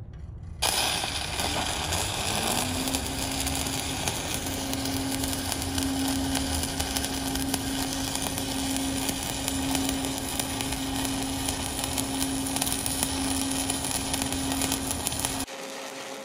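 Stick-welding arc crackling steadily as a 3/32-inch electrode burns a bead on steel plate, run near the top of the rod's amperage range. The arc strikes suddenly about half a second in, a steady hum joins under the crackle about two seconds later, and the sound cuts off sharply shortly before the end.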